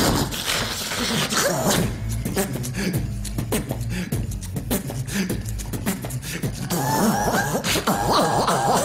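Human beatboxing into a handheld microphone: a fast run of vocal drum sounds, with deep kick hits, snare-like clicks and hi-hat ticks. About seven seconds in, a wavering vocal melody joins over the beat.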